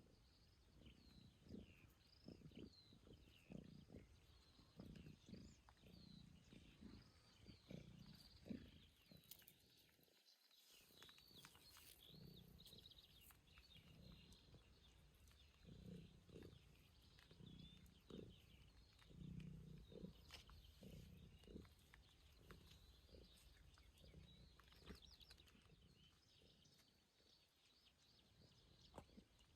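Faint nature ambience: many small bird chirps and twitters over a soft rain hiss, with irregular low rumbles underneath.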